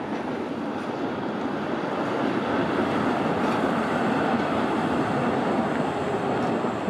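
A vehicle in motion, a steady rushing noise that grows a little louder over the first few seconds and then holds.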